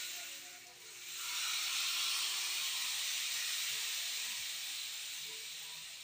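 Hand-made wooden rainstick (palo) held upright, its filling trickling down inside with a steady hiss like a waterfall. The sound dips briefly just under a second in, comes back, then slowly fades.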